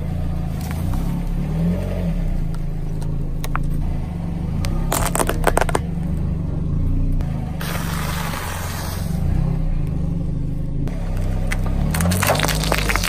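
A car tyre slowly rolls over and crushes objects, over a steady low rumble. A cluster of crunching cracks comes about five seconds in as a row of cardboard tubes is flattened. A hiss lasts about a second and a half around eight seconds as a soft ball is squashed. A run of crackling near the end comes as plastic paint tubes burst under the tyre.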